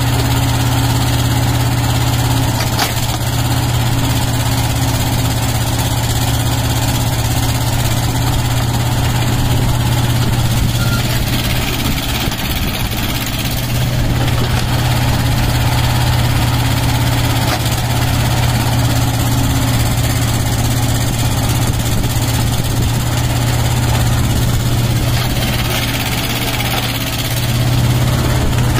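Tata Hitachi mini excavator's diesel engine running steadily as it digs, its low hum easing briefly a few times as the hydraulics are worked, with a couple of faint knocks.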